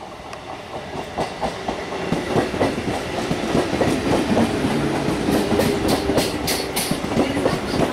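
Eastern Railway Medha-built electric multiple-unit local train running past, its wheels clicking over the rail joints in a quick, uneven clickety-clack over a steady rumble. It grows louder over the first two seconds as the train comes alongside.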